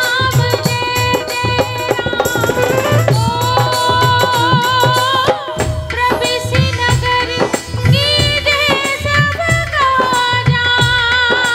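Live Rajasthani devotional song: a woman sings long, wavering held notes into a microphone, over a steady beat on tabla-style hand drums, with saxophone and keyboard accompaniment.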